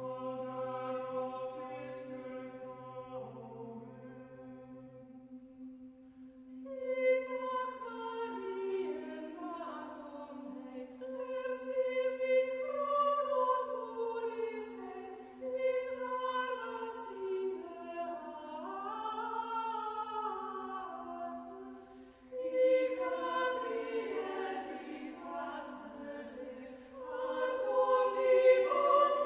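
Choir singing a polyphonic setting of a medieval Marian song in Middle Dutch. Held chord notes over a steady low drone at first; about six seconds in, voices enter with moving lines that weave over the drone and swell near the end.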